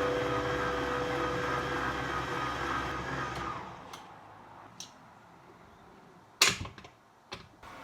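Plucked-string background music ringing out and fading away over the first few seconds. Then a single sharp knock about six and a half seconds in, followed by a couple of light clicks.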